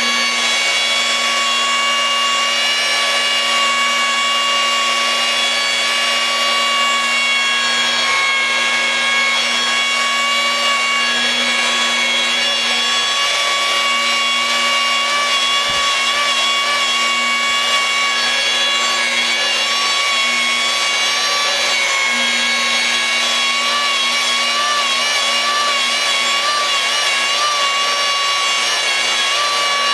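Electric glass polisher running steadily with its pad rubbing across a shower glass panel, held on with almost no pressure. The motor makes a constant hum and a slightly wavering whine over the scrubbing of the pad on the glass.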